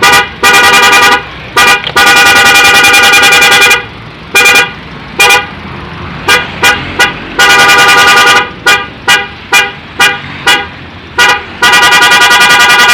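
Electric 'prikitiw' novelty car horn sounding loudly at one steady pitch. Long held blasts alternate with runs of quick short toots.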